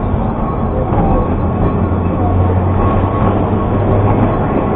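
Douglas Bay horse tram rolling on its rails: a loud, steady rumble and rattle of the running gear.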